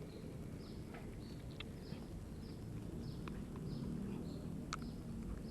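Small birds chirping: short, high, downward-sliding calls repeated a couple of times a second, with a few sharp clicks among them.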